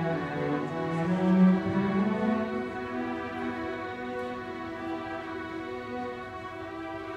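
A string ensemble playing slow, sustained bowed notes, with a low line that drops out about two and a half seconds in, leaving higher held notes.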